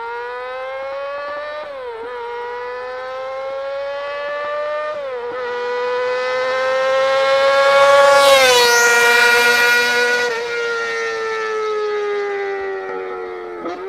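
Kawasaki 250 cc inline-four sportbike engine screaming at very high revs as the bike accelerates up through the gears, with two short dips in pitch at the upshifts. It is loudest about eight seconds in as it passes, then its pitch falls away.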